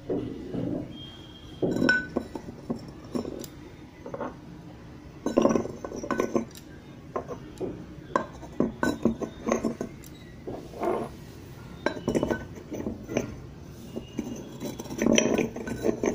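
Terracotta kulhad cup and clay diya lamps knocking, clinking and scraping against one another as they are handled and a diya is nested inside the cup: a run of short irregular knocks with louder clusters.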